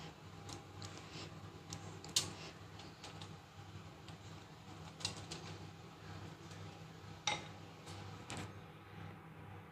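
Sharp clinks and taps of a basting brush against the wire rack and foil-lined roasting pan as barbecue sauce is brushed onto ribs, the loudest about two, five and seven seconds in, over a steady low hum.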